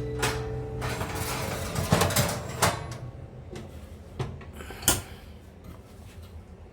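Scattered knocks and clicks of things being handled, over a faint rustle. Background music stops about a second in.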